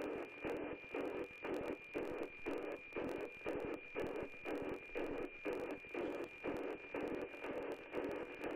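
NOAA-18 weather satellite's APT image signal received on 137.9125 MHz: a steady 2400 Hz tone pulsing twice a second, the tick-tock of image lines arriving. Static hiss and crackle run through it, as the satellite is less than a minute from loss of signal.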